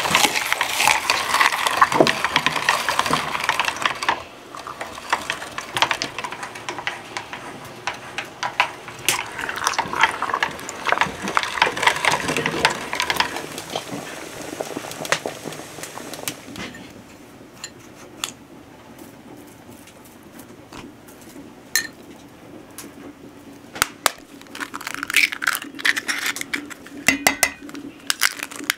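Hand-cranked metal meat grinder being turned as it grinds pork liver, a dense grating and clicking for the first few seconds. Softer kitchen handling noise follows, then a quieter stretch with scattered sharp clicks, and kitchen clatter returns near the end.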